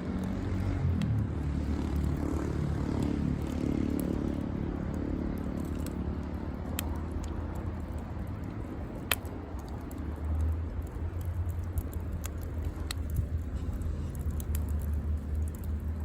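Wood campfire crackling, with scattered sharp pops, the loudest about nine seconds in, over a steady low rumble.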